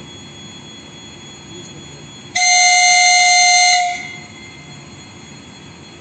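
Train horn sounding one steady blast of about a second and a half, a little over two seconds in, over a low rail rumble.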